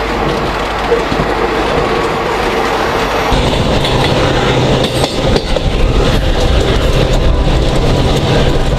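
Passenger train running, heard from an open coach door: a steady rumble of wheels on the rails with clickety-clack. About three seconds in the sound changes abruptly to a deeper, louder rumble with faint ticking from the track.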